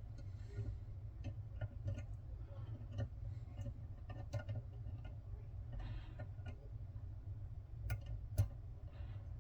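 Small, irregular metallic clicks and ticks of tweezers and brass lock pins being handled while the pins are loaded into a padlock cylinder, with one sharper click near the end, over a steady low hum.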